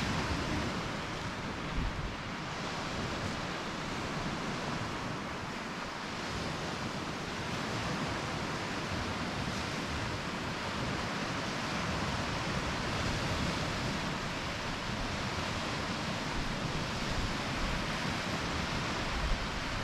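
Baltic Sea surf washing steadily onto a sandy beach, with small waves breaking and swelling gently and a low rumble of wind on the microphone.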